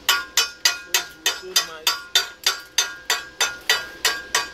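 Chipping hammer striking a freshly welded steel exhaust pipe to knock off the weld slag: quick, even metallic taps, about three a second, each leaving the pipe ringing briefly.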